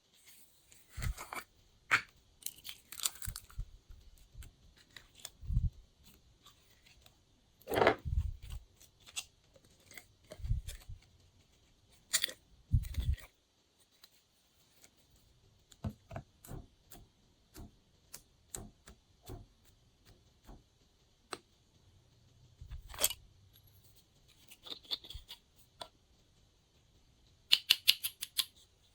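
Glossy slime being squished and stretched by hand, giving off sticky clicks, pops and crackles at irregular intervals, some with a soft low thud, and a quick run of clicks near the end.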